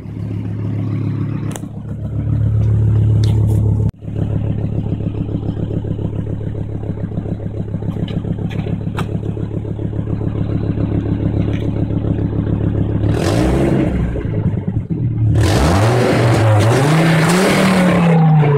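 Volvo V70 T5's turbocharged five-cylinder engine idling with a steady beat, then revved twice near the end, the second rev longer, rising and falling. The revs bring a loud, obnoxious rasp from an exhaust leak where an earlier welded repair has opened up again.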